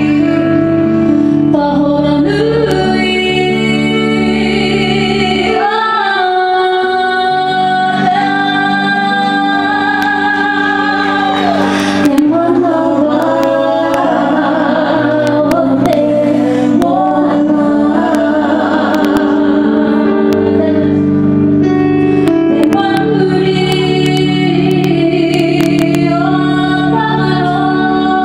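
Live amplified performance: women's voices singing a slow song in harmony over held electric keyboard chords that change every few seconds.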